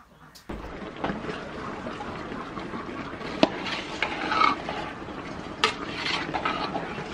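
Cherry tomatoes cooking in a steaming aluminium pot with a steady hiss, starting suddenly about half a second in. A metal ladle stirs them and clinks sharply against the pot a couple of times.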